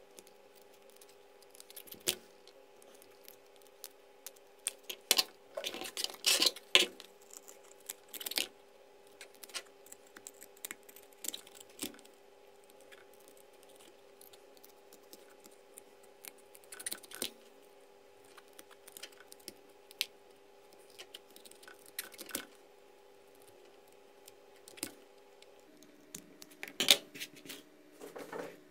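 Scissors snipping through thin wooden ice cream sticks, an irregular series of sharp snaps and cracks, with several close together about five to seven seconds in.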